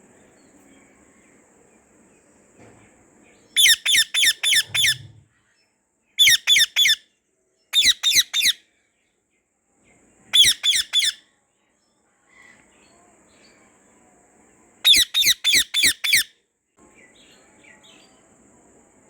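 Indian ringneck parakeet (white mutation) screeching in five bouts of three to six quick, harsh calls each, with short pauses between bouts.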